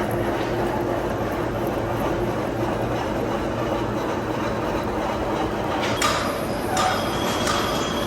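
Machine-shop machinery running steadily with a low hum, joined from about six seconds in by metallic clinks and scraping.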